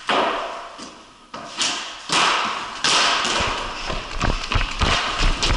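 Ball hockey play on a concrete floor inside plywood boards: sharp cracks of sticks and ball that ring out in the room, followed by a run of quick low thuds and knocks in the second half.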